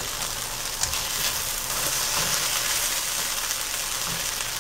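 Okra curry sizzling in a nonstick frying pan over very low heat: a steady soft hiss, with a slotted spatula stirring and scraping through the okra.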